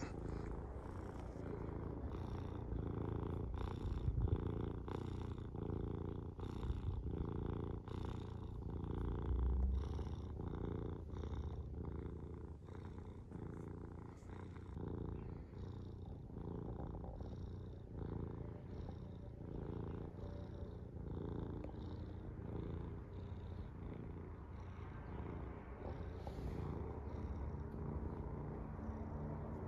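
Domestic cat purring close up, a steady low purr that pulses evenly with its breathing.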